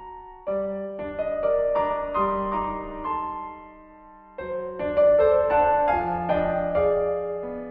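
Background solo piano music in slow phrases, each fading away before the next begins; new phrases start about half a second and about four and a half seconds in.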